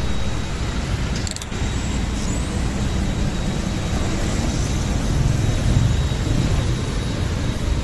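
Road traffic noise: a steady low rumble of vehicle engines and tyres on the road.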